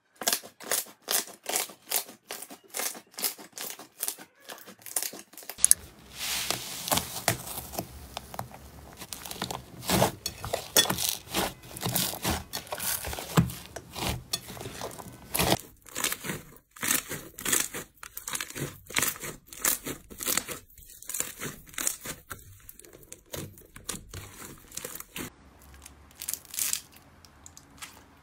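Slime being squeezed, folded and pressed by hand, with a long run of sharp clicks and pops and a dense crackle of trapped air bursting as it is worked.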